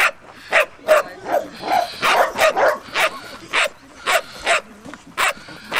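Doberman barking repeatedly, about two barks a second, with a quicker flurry of barks around two seconds in: a young dog worked up by a helper during early bite-work training.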